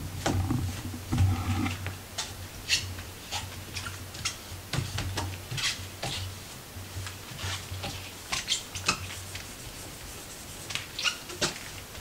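A cloth in a rubber-gloved hand wiping painted wooden banister spindles: a low rubbing hum for the first couple of seconds, then scattered short clicks, squeaks and light knocks as the hand works along the spindles.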